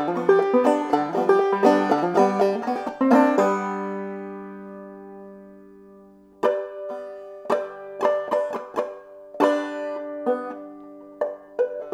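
Open-back banjo played clawhammer style. A quick run of picked notes ends about three and a half seconds in on a chord that rings and fades for a few seconds, then slower, sparser picking starts.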